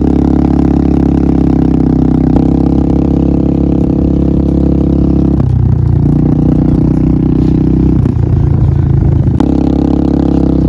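Yamaha Grizzly ATV's single-cylinder four-stroke engine running steadily at close range, its note shifting about halfway through and again a few seconds later as the throttle changes.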